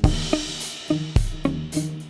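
Background music with a drum-kit beat of bass drum and snare, and a cymbal crash at the start that fades over about a second.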